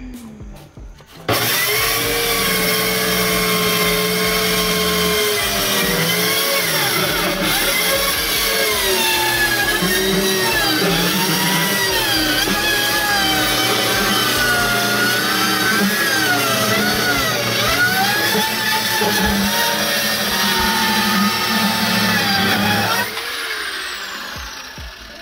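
Compact handheld circular saw cutting through a wooden dresser top: the motor's whine dips and recovers in pitch as the blade loads in the cut. It starts abruptly about a second in and winds down with a falling whine near the end.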